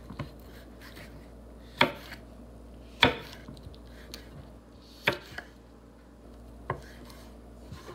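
Chef's knife chopping a red pepper on a wooden cutting board: four sharp knocks of the blade striking the board, spaced one to two seconds apart, with quieter cutting taps between.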